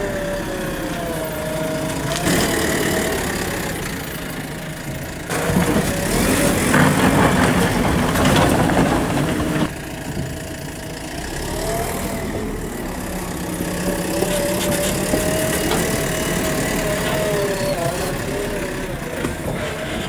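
Engine sound with a pitch that wavers up and down. A louder, rough, noisy stretch starts about five seconds in and cuts off suddenly just before ten seconds.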